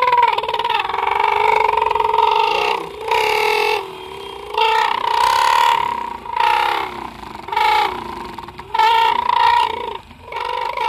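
Homemade balloon-membrane horn driven by the exhaust of a Honda SP125 motorcycle, blaring a buzzy tone whose pitch wavers with the throttle. It sounds in one long blast, then in a string of shorter blasts of about a second each, louder as the revs rise.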